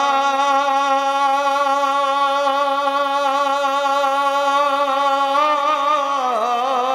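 A man's singing voice holding one long drawn-out note on the word 'Allah', steady with a slight vibrato, the pitch dipping and wavering briefly near the end.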